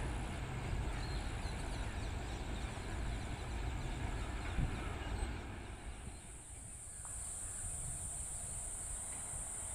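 Goods train rolling away on the track, its wheel rumble fading out over the first six seconds. After that a steady, high-pitched insect drone, typical of crickets, comes to the fore.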